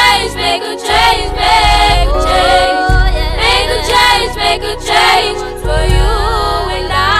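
Song: voices singing a melody over a backing track with a sustained bass line.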